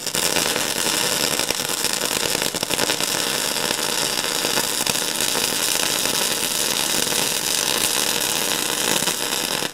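Gasless flux-cored wire welding arc from a MIG welder set to electrode negative polarity, crackling steadily as a bead is run on steel plate, then stopping suddenly when the arc is broken.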